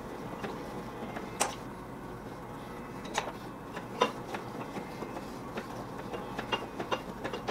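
Hand-cranked ring roller bending a flat metal bar, passing it through the rollers in a light pass: a quiet mechanical run with a few sharp clicks, more of them near the end.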